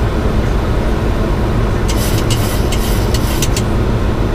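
Steady rush of airflow and jet engine noise inside a Boeing 737-900 cockpit in flight, with a brief run of light clicks about two seconds in.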